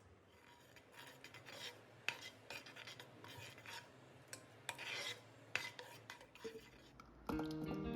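A spoon scraping and clinking in a pan, irregular strokes with sharp clicks, as when stirring; guitar music comes in near the end.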